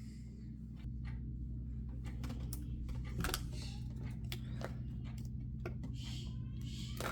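Scattered clicks and crinkles of toy packaging being handled and opened, over a steady low electrical hum.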